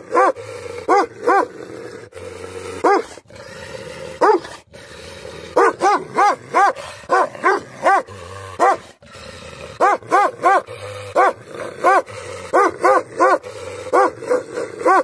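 A large black-and-tan guard dog barking angrily in quick runs of deep barks, about three a second, with growling in the pauses between runs.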